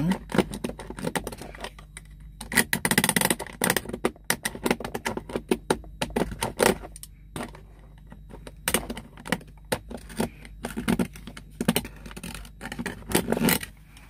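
Utility knife blade shaving and scraping the edge of a hole in a plastic dashboard panel, enlarging it for a USB charger socket: irregular scraping strokes and clicks in short clusters.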